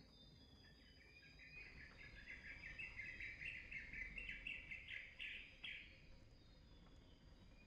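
A bird calling, faint: a quick run of repeated chirping notes that grows louder and then breaks off about six seconds in.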